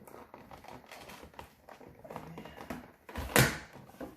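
Plastic packaging being handled, crinkling with many small clicks as a plastic prop is worked loose from its box. One loud thump comes about three and a half seconds in.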